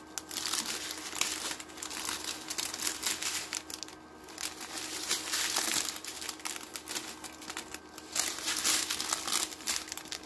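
Small plastic packets of diamond painting drills crinkling as they are handled, in irregular bursts with brief lulls about four and eight seconds in.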